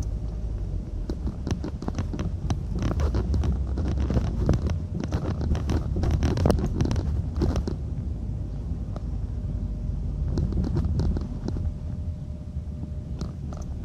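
Muffled handling noise of a phone recording from a pocket or bag: fabric rubbing and scraping on the microphone over a low rumble. There is a busy stretch of clicks and scrapes in the first half, and a few more near the end.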